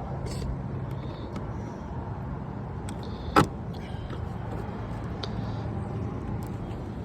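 A vehicle engine hum running steadily in the background. One sharp click stands out about three and a half seconds in, with a few faint ticks around it.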